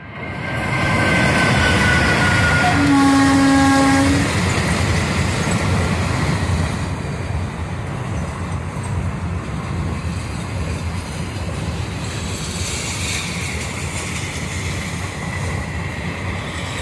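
Passenger train running past close by: a steady rumble of coach wheels on the rails. A single horn blast of about a second and a half comes about three seconds in, the loudest moment. A high tone sliding slightly down in pitch is heard during the first two seconds.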